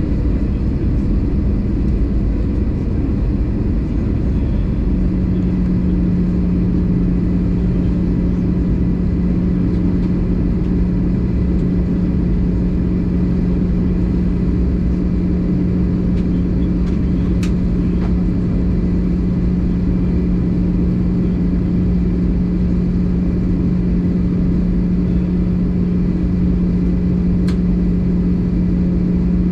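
Airbus A320 cabin noise in flight: a steady rumble of the engines and rushing air. A steady low hum sets in about five seconds in, and two faint clicks come later.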